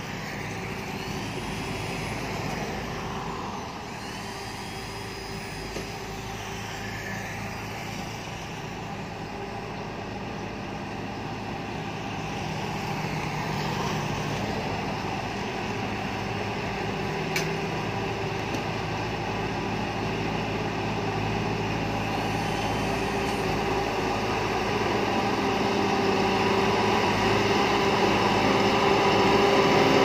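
Shantui crawler bulldozer's diesel engine running steadily as it pushes soil, getting louder as the machine comes close near the end. There is one sharp click about halfway.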